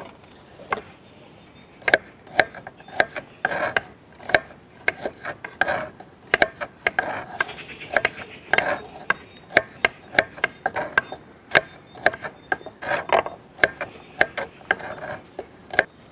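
A knife cutting shallots in half on a cutting board: irregular crisp cuts and knocks of the blade against the board, about one or two a second, with short scraping sounds between.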